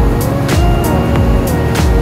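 Background music with a steady beat, a repeating bass line and a melody.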